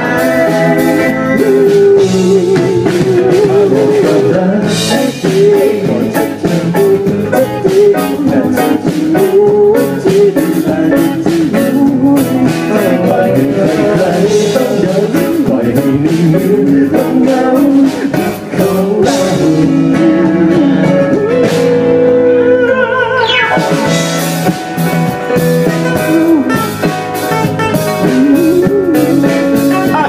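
Live band playing a bluesy instrumental passage: acoustic and electric guitars, keyboard and drum kit, with a wavering lead melody line over the top.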